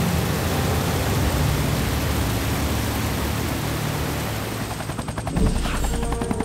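Rushing water of the Zambezi river above Victoria Falls, a steady wash of noise. About five seconds in it gives way to a brief whoosh and a rapid, even pulsing.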